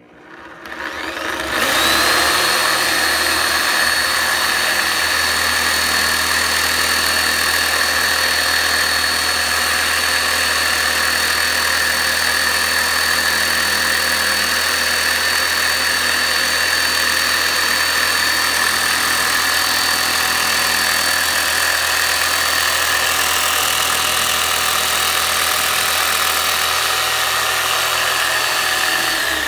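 Chicago Electric reciprocating saw running steadily with a fine metal zester in place of its blade, stroking it back and forth against an orange's peel. The motor winds up over about the first two seconds to a steady high whine.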